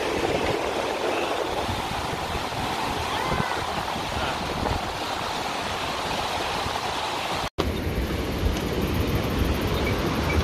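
Steady rush of the Hooker River, a fast glacial meltwater river, below the swing bridge. About three-quarters of the way through the sound cuts out for an instant, and after that wind rumbles on the microphone as well.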